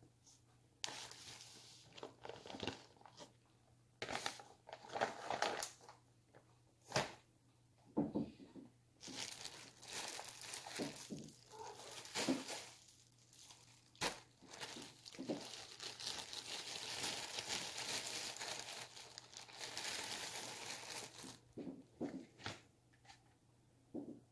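Plastic packaging crinkling and rustling as it is handled close by, in irregular bursts with a long stretch of continuous crinkling in the middle.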